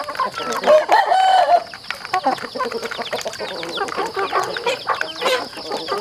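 A flock of chickens clucking as they feed together, with beaks tapping at the feed trough in quick irregular clicks. A louder drawn-out call rises above them about a second in.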